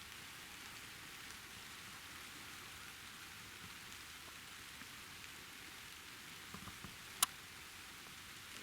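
Steady rain falling, an even hiss of drops, with a few faint taps about six and a half seconds in and then one sharp, loud tick.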